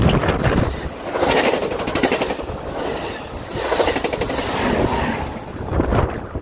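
Amtrak Pacific Surfliner passenger train passing close by at speed: wheels rumbling and clattering on the rails under a rush of noise. It swells and eases several times as the bilevel cars go by, then drops off right at the end as the last car clears.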